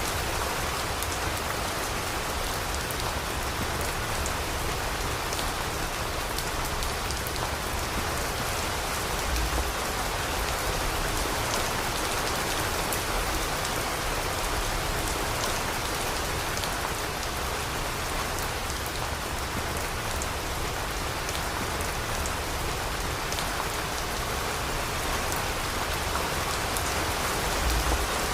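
Steady rain falling and pattering on surfaces, with many small drop ticks over an even hiss and a low rumble.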